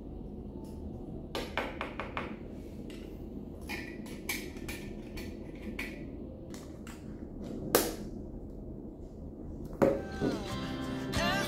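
Steady low room rumble with scattered small clicks and knocks, a sharp click about eight seconds in. A thump comes near the end, and background music starts just after it.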